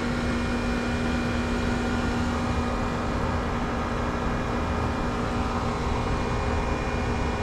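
Outdoor central air-conditioner condensing units running: a steady hum from a reciprocating compressor under the whoosh of the condenser fan.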